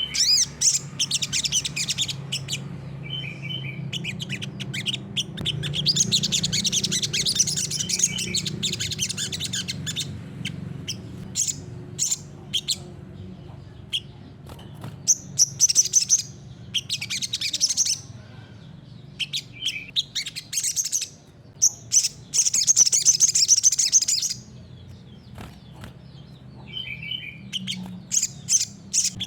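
Sunbird singing in repeated bursts of fast, high-pitched twittering and trills, with short pauses between phrases, over a steady low hum.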